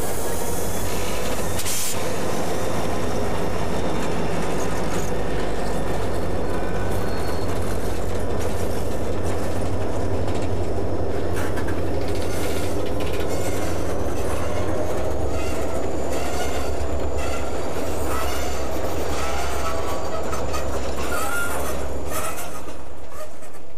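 Freight train rolling past: its diesel locomotive and cars go by with a steady low rumble, the wheels squealing thinly and clicking over the rail joints.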